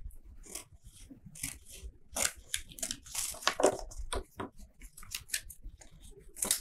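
Scissors snipping through paper sheets, mixed with the rustle of paper being folded and handled. The snips and rustles come irregularly and are busiest from about two to four seconds in.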